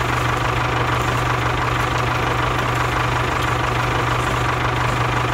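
Tractor engine idling steadily, an even low drone with no change in pace.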